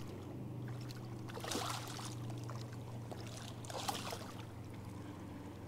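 Dusky flathead thrashing at the water's surface beside a boat while hooked, making two short splashes about a second and a half apart and a second and a half apart again near four seconds in, over a steady low hum.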